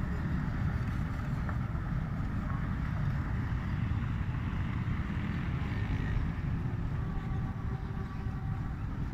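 Steady low rumble of road traffic, with motorcycles riding through a flooded street; a faint engine tone comes in near the end as a motorcycle approaches.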